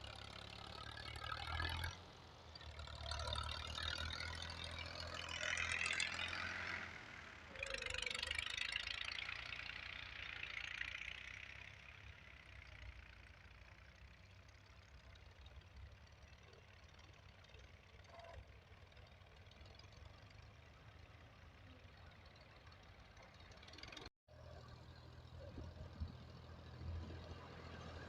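A heavy diesel engine running, louder and rougher in several surges over the first dozen seconds, then settling to a quieter, steady run. The sound cuts out for an instant about 24 seconds in.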